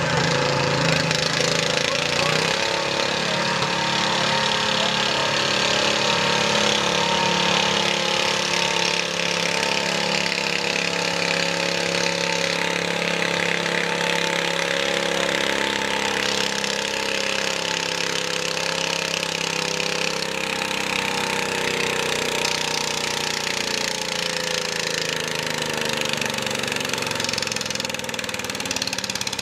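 Pro stock garden tractor engine running hard under load while it pulls a weight-transfer sled, its pitch wavering up and down throughout.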